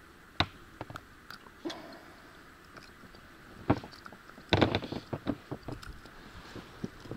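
Scattered knocks and clicks of handling on a small fishing boat, with a short burst of clattering about four and a half seconds in.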